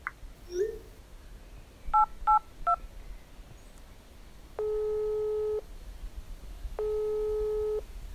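A mobile phone call being placed: three quick two-tone dialing beeps about two seconds in, then the ringback tone sounding twice, each ring about a second long with a pause between.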